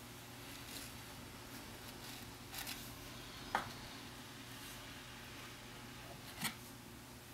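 Faint scrubbing and scraping of a paintbrush on canvas in a quiet room, with a few short taps and one brief sharp squeak about halfway through.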